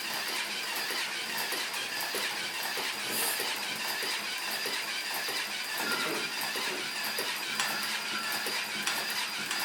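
A small mechanism running steadily, with rapid faint clicking and a thin high whine.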